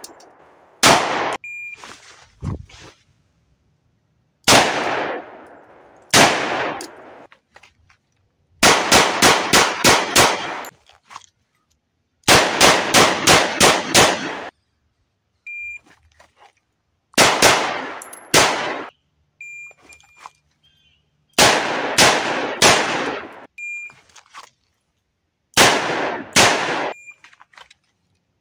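Handgun fire from a .45 ACP HK45 Compact pistol and a Taurus 692 revolver in timed drill strings: single shots, pairs and fast strings of five to seven shots, each sharp crack trailing off in an echo. Short high shot-timer beeps sound between several of the strings.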